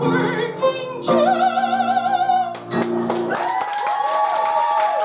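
A woman sings the song's final held note with wide vibrato over a sustained accompaniment chord, then the music stops. About three and a half seconds in, the audience breaks into applause with a few gliding whoops.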